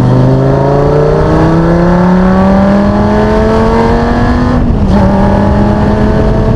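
A vehicle engine accelerating, its pitch rising steadily for about five seconds, then a brief break and drop in pitch as at an upshift before it runs on.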